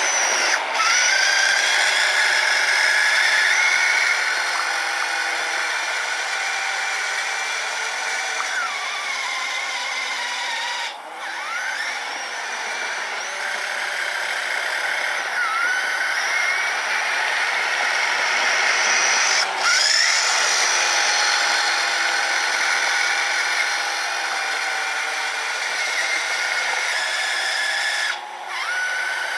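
Small electric motors of a radio-controlled snowblower and trail truck whining, the pitch rising and falling several times as they speed up and slow down. The whine dips briefly twice.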